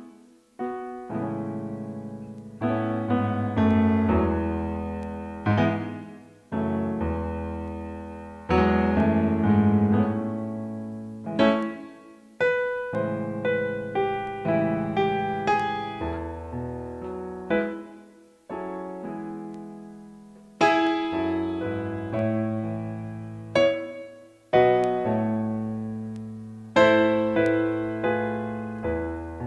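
Digital keyboard played with a piano sound: arpeggiated chords over low bass notes, a new chord struck every second or two and left to ring and fade.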